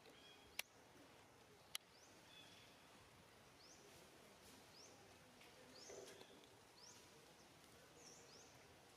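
Faint outdoor ambience with short, high, rising chirps from birds repeating about once a second, and two sharp clicks about a second apart near the start.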